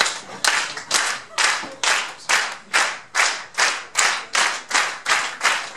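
Hands clapping in a steady beat, about two claps a second: a clap-along setting the tempo for a song.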